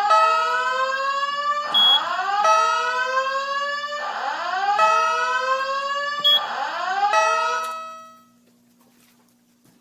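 Simplex 4100U INFOAlarm voice-evacuation fire alarm sounding its evacuation tone through the speakers: a slow rising whoop repeating about every two seconds, with steady tones in between and two short high beeps. It cuts off about eight seconds in, leaving only a faint hum.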